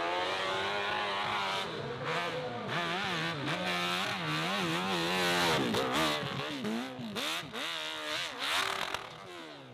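Dirt bike engine revving hard while climbing a steep dirt hill, its pitch rising and falling in quick waves, about two a second, as the throttle is worked. The revs drop away near the end.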